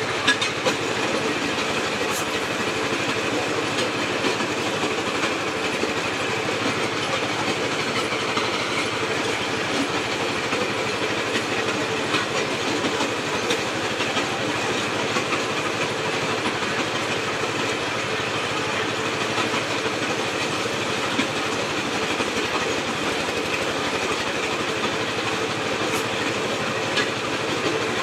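Brick-breaking machine running steadily, driven by belt from an 8.5-horsepower engine, with the clattering rattle of bricks being crushed into chips.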